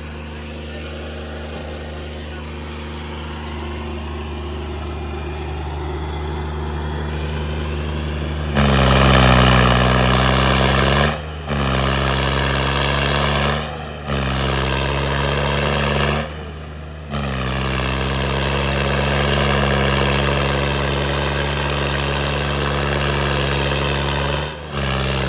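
Tractor diesel engine running steadily, pulling against another tractor in a tug-of-war. The sound jumps louder and harsher about eight and a half seconds in, then dips briefly a few times.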